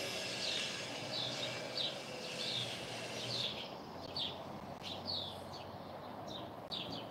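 A bird chirping over and over: short, high, falling chirps repeating irregularly, one or two a second, against a faint outdoor background.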